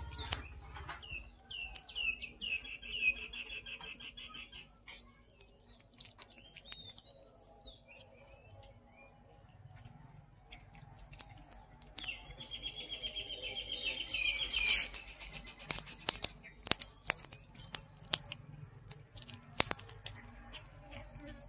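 A kitten chewing and crunching cooked chicken close up, a scatter of sharp clicks and smacks. Small birds chirp in fast trills behind it, twice: near the start and a little past the middle.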